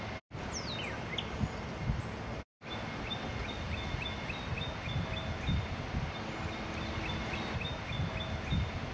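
Songbirds singing: a falling whistled note near the start, then a long run of short, evenly repeated chirps, over irregular low rumbles. The sound cuts out completely twice in the first few seconds.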